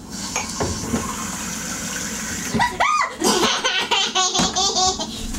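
Kitchen faucet running water into the sink. About two and a half seconds in, a child breaks into giggling laughter.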